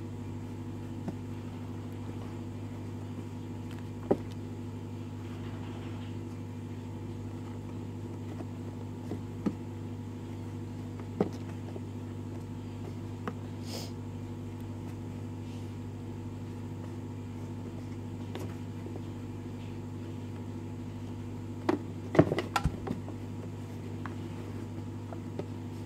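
A kitten pawing and scrabbling at a cardboard shoe box: a few scattered soft taps and scrapes, with a cluster of louder knocks near the end. A steady low mechanical hum runs underneath throughout.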